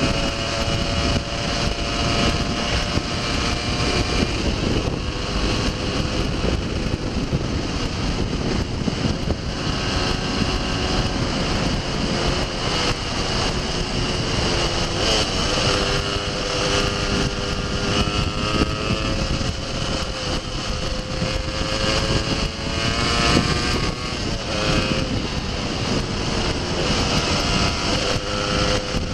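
Off-road motorcycle engine running under way on a gravel road, its note rising and falling with the throttle, under heavy wind noise on the microphone and tyre rumble.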